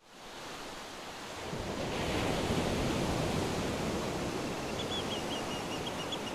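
Ambience fading in: a steady rushing noise, joined about four and a half seconds in by a bird giving a quick series of short high chirps.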